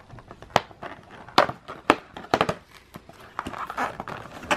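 A cardboard advent calendar being handled: several sharp taps and clicks as a door is pried open, then a soft crinkling rustle as a small boxed gift is pulled out.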